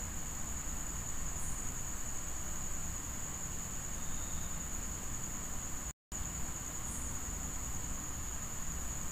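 Steady background noise: a continuous high-pitched whine over hiss and a low hum, cutting out briefly about six seconds in.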